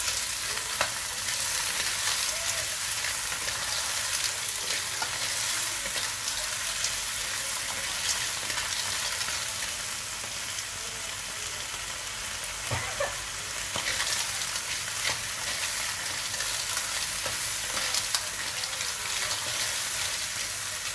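Clams in their shells sizzling in hot oil with ginger and garlic in a nonstick wok, stirred with a wooden spatula, the shells clicking and clattering against each other and the pan throughout the steady sizzle.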